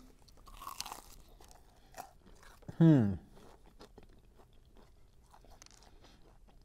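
Biting into and chewing crispy fried chicken with the skin on: a run of small crunches, with one short falling hum of a voice about three seconds in.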